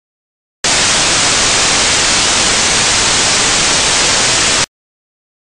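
Loud static white noise like an untuned TV, starting abruptly about half a second in and cutting off just as suddenly about four seconds later.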